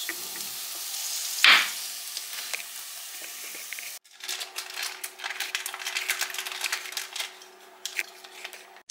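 Rinsed red lentils tipped from a sieve into a hot steaming pot: a steady hiss with one loud rush about a second and a half in. Then a pot of red lentil soup simmering, with a dense crackle of small pops over a faint steady hum.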